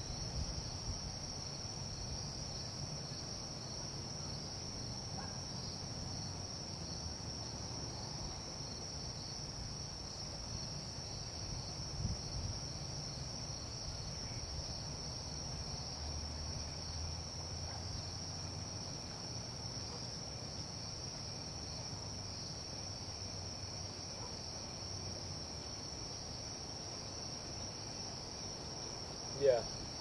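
Evening chorus of insects such as crickets: a steady, unbroken high-pitched trill over a low background rumble. One brief, louder sound cuts in near the end.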